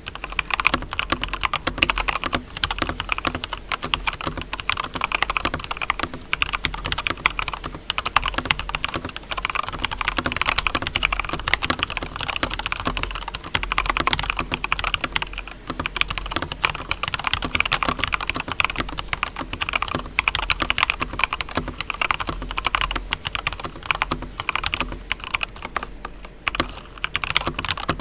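Fast, continuous typing on a Varmilo Koi mechanical keyboard fitted with stock, unmodified Zeal Tealios V2 linear switches: a dense, steady stream of keystrokes.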